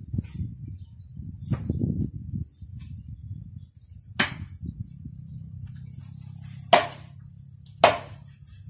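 Hand-tying a grass-flower broom: rustling and handling of the dry grass bundle, then three sharp snaps or knocks, a second or two apart, as the binding is worked tight.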